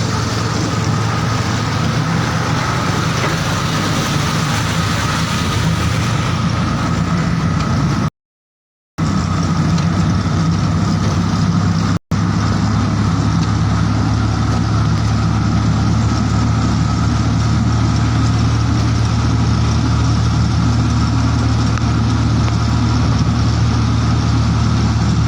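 An engine running steadily with a low, even hum and a wash of noise. The sound cuts out completely for about a second partway through, and again very briefly a few seconds later.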